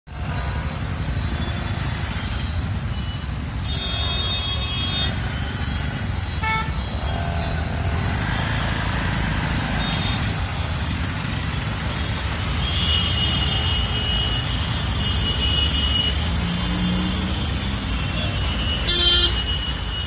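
Congested city traffic: a steady low rumble of idling and creeping engines, with vehicle horns honking on and off. There is a long honk in the middle and a loud short honk near the end.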